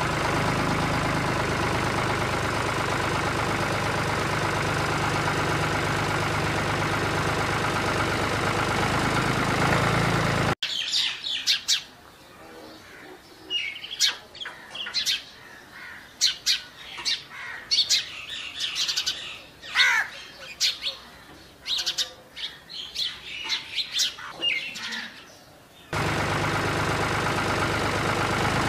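Small electric motor of a homemade miniature toy tractor running with a steady whirr, cutting off abruptly about ten seconds in. Birds then chirp and call on and off until the motor whirr comes back just as abruptly near the end.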